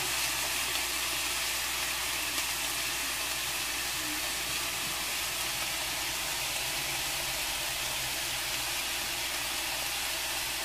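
Pork ribs searing in oil in a frying pan, sizzling with a steady frying hiss.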